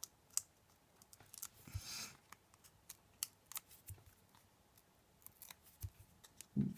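Scissors snipping card and paper: faint scattered sharp clicks, with a short rustle of paper about two seconds in.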